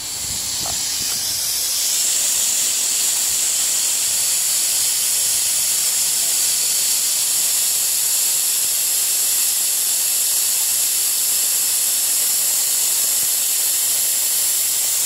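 Loud, steady hiss of compressed air escaping from the Volvo 780 semi truck's air suspension, swelling over the first couple of seconds and then holding level: air is being let out so the suspension and frame lower.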